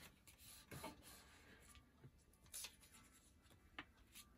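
Faint rubbing and rustling of hands smoothing a glued fabric strip onto a paper journal page, with a few brief paper swishes as the page is handled.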